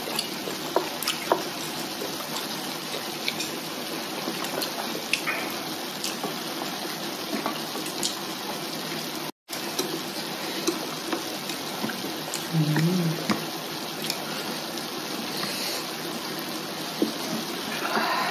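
Hotpot broth bubbling in an electric hot pot, a steady watery hiss, with scattered light clicks of chopsticks and spoons against the pot and bowls.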